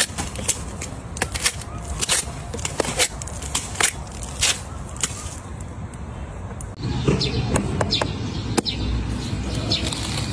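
Crisp watermelon flesh cracking and snapping as hands tear it off the rind, a quick irregular run of sharp crackles. About seven seconds in, a duller rustling sets in with a few more sharp cracks as a whole watermelon is pressed by hand until its rind splits.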